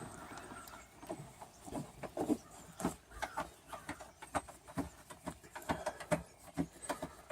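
Hand socket ratchet clicking in short, irregular strokes, a few clicks a second, as a small 10 mm bolt holding the rear spoiler is backed out.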